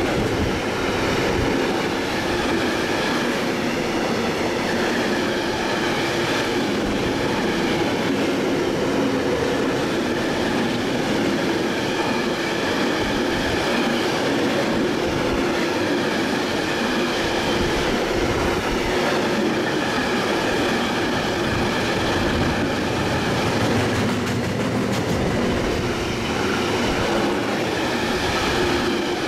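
Container freight train passing at speed on the nearest track: the steady rolling noise of its loaded flat wagons' wheels on the rails, with no pause from wagon to wagon.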